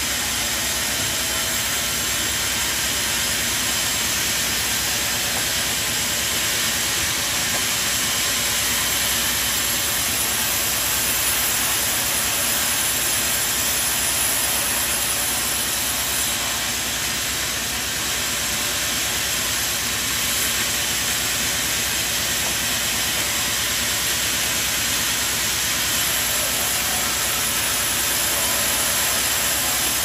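Machinery running with a steady, even rushing noise, no clear beat or pitch and no sudden strokes.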